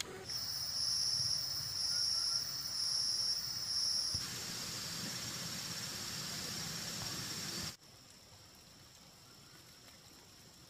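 High-pitched insect buzzing, about four pulses in the first four seconds, then a steady hiss that cuts off abruptly about three-quarters of the way through, leaving a faint, steady background.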